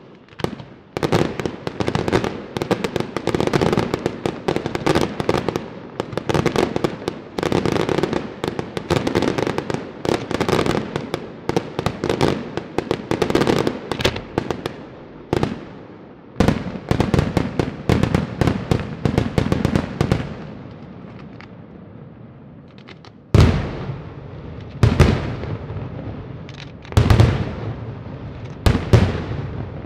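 Daytime fireworks display: dense, rapid volleys of firecracker bangs for about the first fifteen seconds, thinning out to a brief lull. After the lull come several heavy, deep booms a second or two apart in the last seven seconds.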